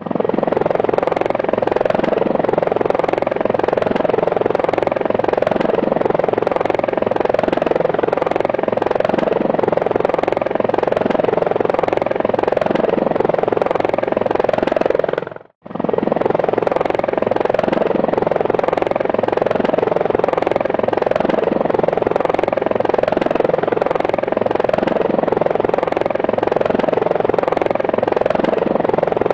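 Small quadcopter drone's propellers buzzing steadily, with a slight regular wobble. The sound fades out and straight back in about halfway through.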